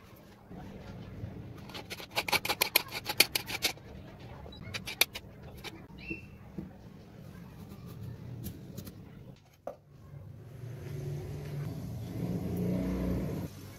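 Kitchen knife slicing green bell pepper and carrot into strips on a cutting board: a quick run of cuts, about eight a second, for nearly two seconds, then scattered single cuts. In the last few seconds a low engine-like drone grows louder and cuts off suddenly.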